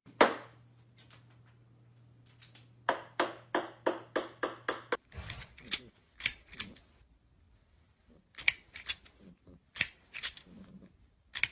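Sharp clicks and taps in quick runs, with short pauses between them: a cat batting at a hard plastic toy.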